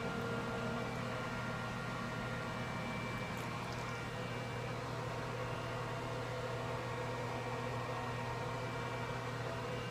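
Steady low hum with an even hiss, typical of a fan or small motor running.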